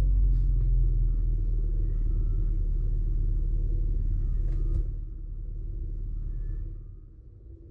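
Washing machine drum spinning during its load-sensing cycle, a loud low rumble that drops after a knock about five seconds in and dies away near the end as the drum slows to a stop.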